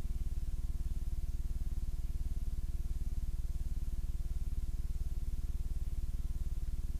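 Steady low electrical buzz, a mains-type hum on the audio track of a blank, black stretch of videotape.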